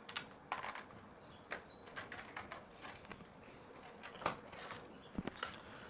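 Faint, scattered clicks and crinkles of hands opening a plastic SSD package and handling the drive, with a brief high squeak about one and a half seconds in.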